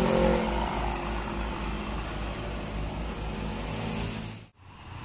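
A coach bus's engine running as it drives past and away, with road traffic. The sound cuts off abruptly about four and a half seconds in, leaving quieter traffic noise.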